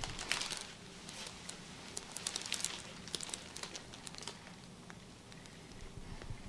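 Soft rustling and crinkling with scattered small clicks, clustered about a quarter second in and again from about two to three and a half seconds in, from hands and a body moving over a massage treatment table.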